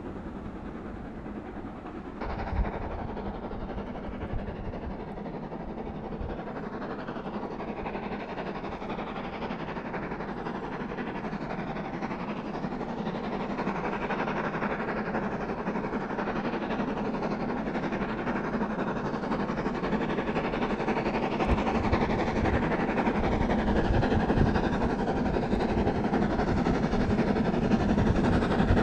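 LMS Jubilee class three-cylinder steam locomotive 45690 Leander approaching under steam with a train, its sound growing steadily louder as it draws nearer. A brief knock about two seconds in.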